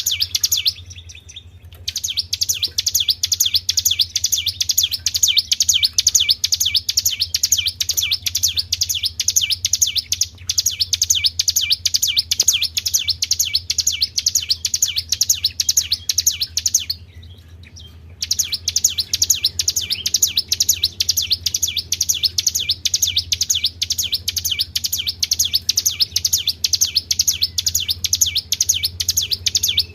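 Songbird singing a fast, high-pitched trill of rapidly repeated notes, the 'tribel' song used as a lure and training track for cage birds. The trill breaks off briefly about a second in and again a little past halfway, then resumes.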